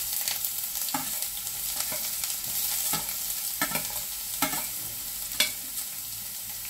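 Minced garlic and ginger sizzling in hot oil in a frying pan, a steady hiss. A metal spoon clinks sharply against a steel plate several times as the last of the garlic is scraped off.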